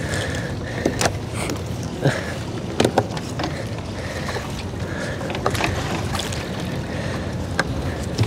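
Sharp knocks and clacks on a small fishing boat, about eight scattered through, as a gill net is hauled aboard. Under them is a steady wash of wind and river water.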